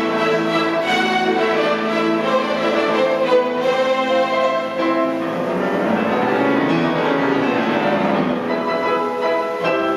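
Youth orchestra strings and two pianos playing classical music live, with sustained string notes and a busier texture of running notes from about halfway through.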